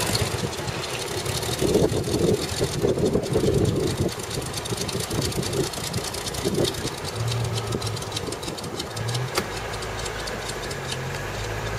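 Jaguar J60 straight-six petrol engine of a CVR(T) Striker idling unevenly with irregular ticking, misfiring badly because of a stuck valve.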